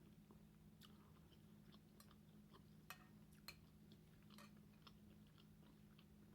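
Faint chewing of shrimp scampi, with soft mouth clicks scattered throughout and two sharper clicks about three and three and a half seconds in, over a low steady hum.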